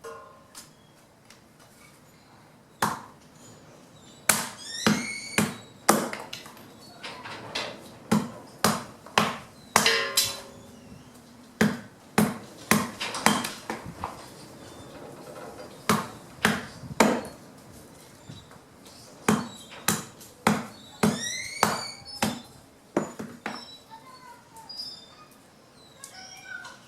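Fallen branches being chopped by hand into wood chips: about two dozen sharp chopping strikes in runs of four or five, about half a second apart, with short pauses between runs. A few strikes carry a brief high ring.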